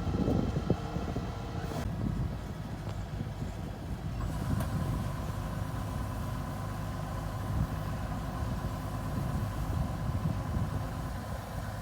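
Engine of a farm machine running steadily, with a steady whine joining about four seconds in.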